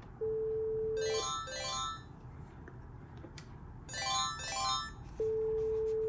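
Panasonic KX-TG9541 cordless handsets on an intercom call. A steady electronic beep tone lasting about a second alternates with a double burst of quick warbling ring tones, and the pattern starts over near the end.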